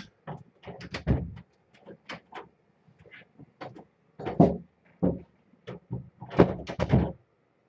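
A door being handled and shut, with a run of clicks, knocks and thumps, heaviest about four and a half seconds in and again near the end.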